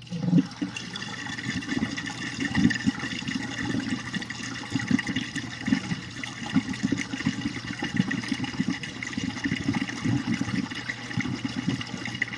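GE dishwasher's pump running and sloshing water through the tub between the main wash and the first rinse: a steady hum with a thin high whine, and water splashing in irregular surges. It starts suddenly at the beginning.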